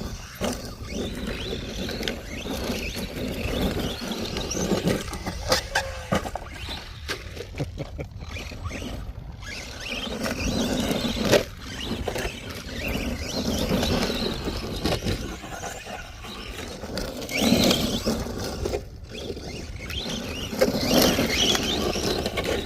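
ARRMA Vortex electric RC car running over dirt and gravel, its motor and tyres surging and easing with the throttle. Several sharp knocks cut through, from hits and landings.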